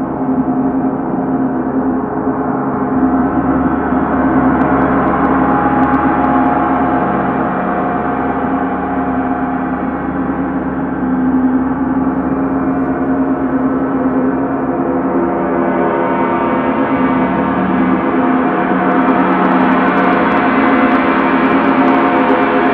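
Large gongs played continuously with soft felt mallets: a loud, sustained wash of many overlapping ringing tones with no gaps between strokes. It swells and grows brighter in the last few seconds as a second gong joins in.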